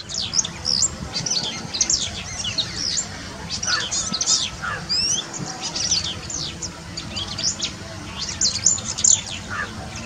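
Small birds chirping, with many quick high-pitched notes crowding over one another, and a few lower notes now and then, over a steady low background hum.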